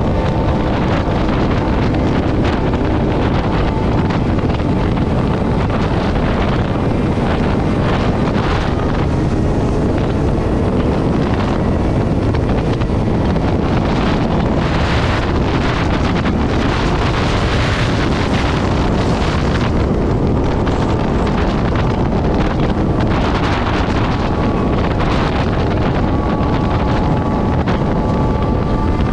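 Heavy wind rush over the microphone of a motorcycle riding at highway speed, with the bike's engine running steadily underneath as a faint hum whose pitch drifts slowly.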